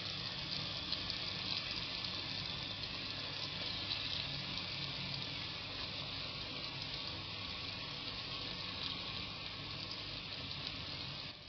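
Steady sizzling of onion and tomato frying in sesame oil in a clay pot as raw chicken giblets are added. It eases off slightly near the end.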